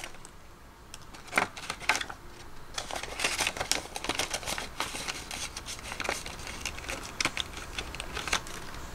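Paper cash and a budget-binder envelope being handled as a bill is stuffed in: a dense run of small crinkles, crackles and taps that begins about a second and a half in.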